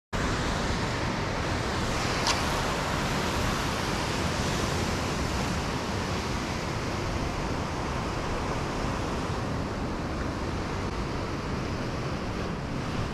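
Ocean swell breaking and washing against a rock ledge below, heard as a steady rushing noise mixed with wind. One sharp click about two seconds in.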